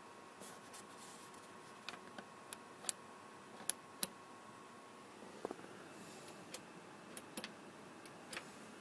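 Light, sharp clicks and ticks at irregular intervals, about a dozen, the loudest around four seconds in, over a faint steady hum.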